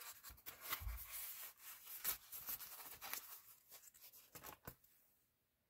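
A foam mounting pad being peeled and pulled off the plastic base of a 2009 Chevy Cobalt power side mirror: faint rubbing, tearing and small plastic clicks, stopping about five seconds in.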